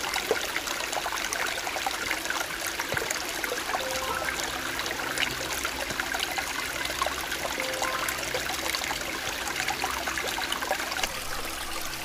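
Shallow stream water trickling and splashing steadily over stones, with faint, soft background music underneath.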